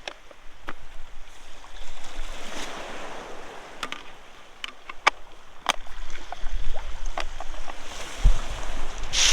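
Sea waves breaking and washing up the beach, swelling twice, with the second wash the loudest near the end. Scattered sharp clicks and knocks sound in between.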